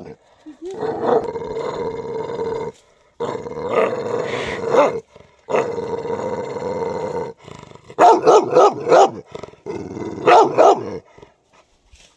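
Dog howling in three long held notes of steady pitch, then barking in a rapid run of short barks.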